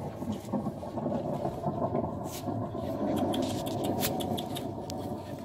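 Recorded thunderstorm sound played loudly through a loudspeaker, a steady heavy noise used to get puppies used to loud sounds. A few sharp clicks come about halfway through.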